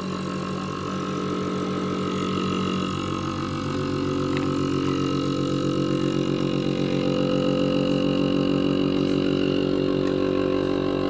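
Countertop vacuum sealer's pump motor running, drawing the air out of a bag: a steady mechanical hum whose tone shifts slightly about three seconds in.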